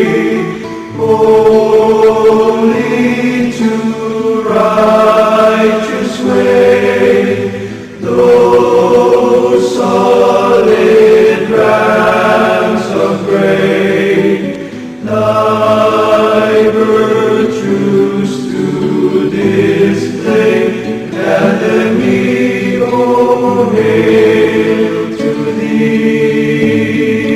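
Choir singing slow, held chords in phrases a few seconds long, with brief breaths between phrases and no clear words.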